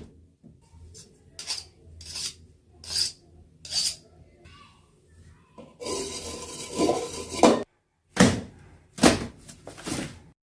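Foley clatter of dishes and cutlery. A run of short clinks comes about one every three-quarters of a second, then a longer rattling scrape of about two seconds, then three louder knocks near the end.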